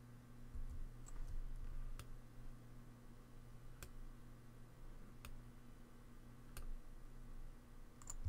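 A few faint, sharp computer mouse clicks, spaced about a second and a half apart, over a low steady hum.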